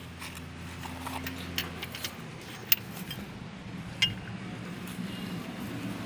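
Scattered sharp clicks and knocks, like tools or parts handled on metal, the loudest a single sharp click a little under three seconds in, over a steady low hum that shifts pitch about two seconds in.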